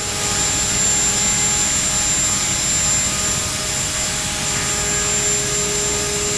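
Align T-REX 450 electric RC helicopter hovering: a steady whine from its motor and rotor, with several held tones over a rushing hiss.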